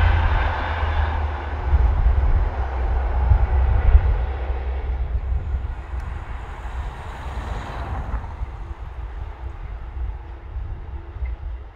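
A pair of Class 73 electro-diesel locomotives hauling a long train of wagons. The deep rumble of the train gradually fades as it moves away.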